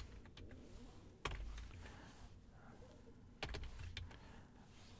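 A few scattered computer keyboard keystrokes: some faint taps at first, a louder keystroke with a dull thump about a second in, and two more taps about three and a half seconds in.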